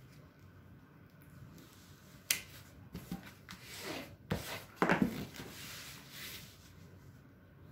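A diamond painting canvas and its plastic cover film being handled and rubbed flat, rustling, with a few sharp crackles. One comes about two seconds in, another near four seconds, and the loudest cluster about five seconds in.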